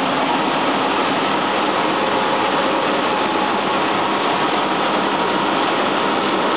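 Buckwheat processing line machinery running: a loud, steady, even noise with a faint steady tone through it, no strokes or changes.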